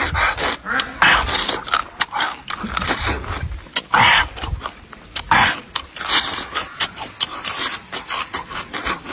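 A person biting, crunching and chewing pickled fruit close to the microphone, in quick irregular crackly bursts and clicks.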